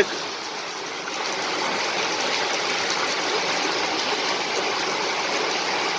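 Steady rain falling, an even hiss that grows a little louder about a second in.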